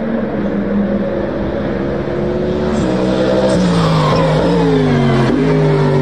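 Toyota GR GT3 prototype race car passing close by at speed, its engine, thought to be a twin-turbo V8, giving a deep, bassy note. The pitch holds steady, steps down a couple of times about three seconds in, then falls away as the car goes by and heads off.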